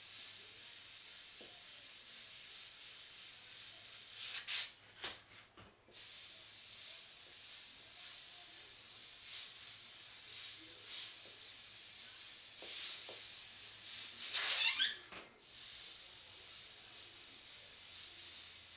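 Airbrush hissing steadily as it sprays paint, with two short breaks, about five seconds in and near fifteen seconds, each just after the hiss grows louder.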